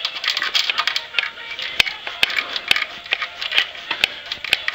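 Music playing, with irregular sharp metallic clicks and rattles from steel bolts and washers being handled.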